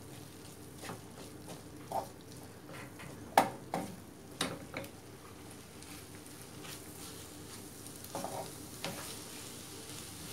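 A wooden spatula stirs and scrapes a squid and grated-coconut stir-fry around a nonstick frying pan, with irregular scrapes and taps over a steady low sizzle. The sharpest stroke comes about a third of the way in, and there is a short run of scrapes near the end.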